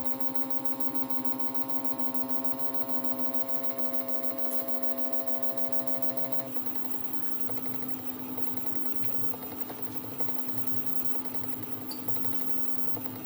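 CNC machine's stepper motors whining steadily while driving a spring-loaded carbide engraving tool across a tag. About six and a half seconds in, the steady whine gives way to a busier, rhythmic stepping sound as the machine moves on to other strokes.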